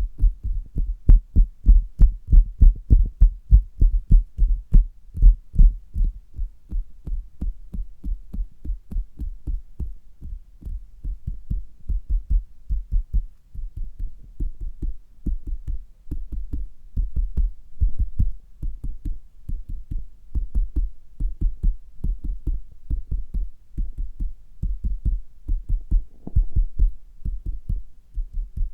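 Fingers tapping on a stomach, heard through a stethoscope: a steady run of quick, low thumps, about three or four a second, loudest in the first few seconds.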